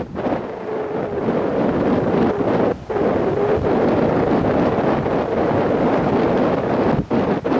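Loud wind rush buffeting an action camera's microphone as a paraglider flies along the dune. There are brief dips in the noise about three seconds in and again near the end.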